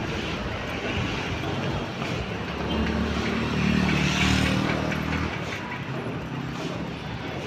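Road traffic, with one vehicle's engine passing close: it swells in about three seconds in, is loudest around four seconds, and fades again after about five.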